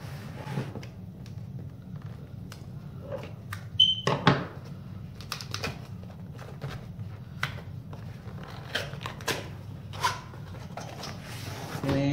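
Cardboard box being handled and opened by hand: scattered clicks, taps and short rustles of cardboard and tape, with two louder knocks about four seconds in, over a steady low hum.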